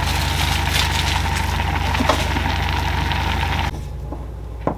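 Thick budae-jjigae stew boiling hard in a pot on a gas stove, a dense crackling and popping over a steady low hum. It cuts off about three and a half seconds in, leaving a quieter background and a single short knock near the end.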